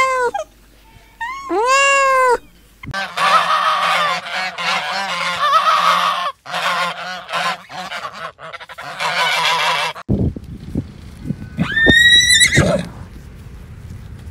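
A kitten meows twice, then a flock of white domestic geese honks and cackles for about seven seconds. Near the end a horse whinnies once.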